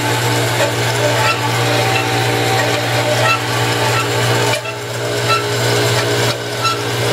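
9-inch swivel-base band saw with a 3-phase motor, running without a cut at its high blade speed just after being started: a steady motor hum with a faint tick about once a second.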